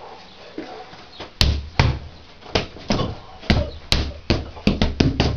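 Punches landing on a BOB (Body Opponent Bag) striking dummy: a string of heavy thuds, about two to three a second, starting about a second and a half in.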